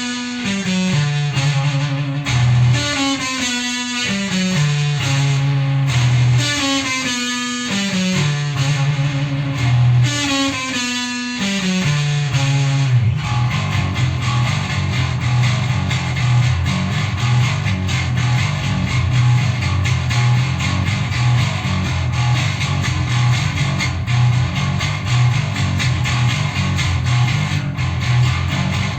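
Electric guitar music with bass: a descending riff, stepping down note by note, repeats about every two seconds. From about thirteen seconds in it gives way to a denser, sustained, distorted passage over a steady low note.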